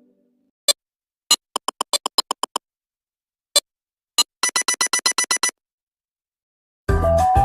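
Nothing phone ringtone: short, crisp electronic blips, some alone and some in quick runs of about eight to twelve, with silent gaps between. Near the end a different, melodic synth ringtone, the Nexus phone's, starts up.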